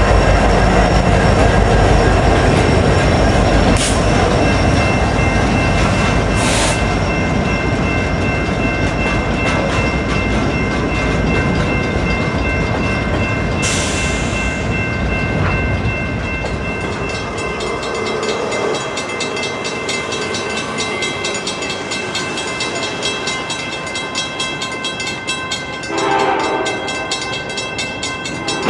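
Slow Union Pacific freight of empty well cars rolling past, hauled by EMD SD70-series diesel locomotives: a deep diesel rumble fades about two-thirds of the way through, leaving the rattle of the empty cars over the rails, with a steady high ringing throughout and a few sharp metallic squeaks. A louder mid-pitched rail noise comes in near the end.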